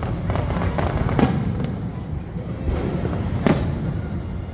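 Fireworks bursting: several sharp bangs, the loudest about a second in and again at about three and a half seconds, over a continuous low rumble and crackle.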